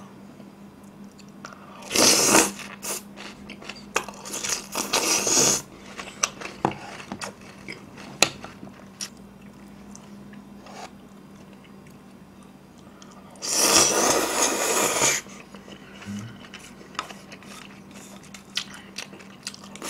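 Close-up eating sounds: biting and chewing crispy battered sweet-and-sour pork and black bean noodles, with three loud spells of crunching and mouth noise about 2, 5 and 14 seconds in, and small wet chewing clicks between.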